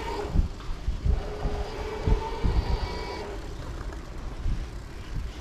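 Steady whine of a BiciMAD electric rental bike's assist motor while riding, with uneven low buffeting of wind on the microphone.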